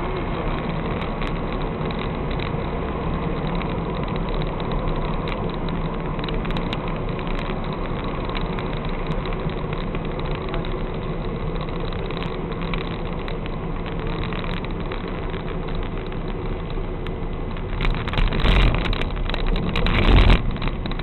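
Car engine idling steadily, heard from inside the cabin through a dashcam microphone. About 18 seconds in and again near the end, two louder low rumbles rise over it for about a second each.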